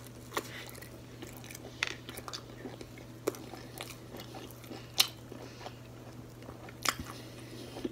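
Close-up chewing of fried, battered seafood, with scattered crisp crunches and mouth clicks about once or twice a second.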